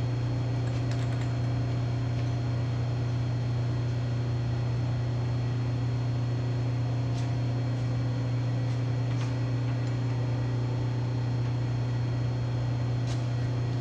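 Steady low electric hum of running shop machinery, unchanging throughout, with a few faint light clicks.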